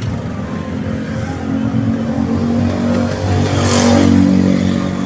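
Large countertop blender running as it blends an iced chocolate drink: a steady motor hum that grows louder, peaking with a hiss near the end.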